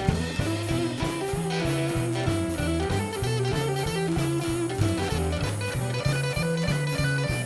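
Blues band playing an instrumental break: a lead guitar line over a bass line moving in steady steps, with drums keeping time.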